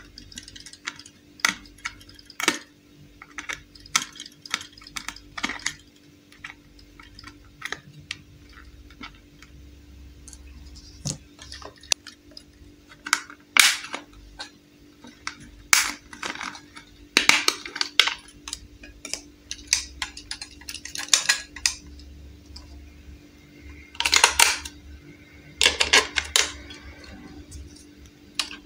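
Hard plastic toy casing handled: irregular clicks and taps with several longer scrapes as a blade tip works at the battery-cover screw of a small plastic toy washing machine and the cover is pried off.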